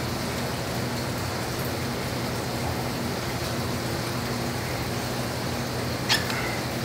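Steady low machine hum with an even hiss, with one sharp click about six seconds in.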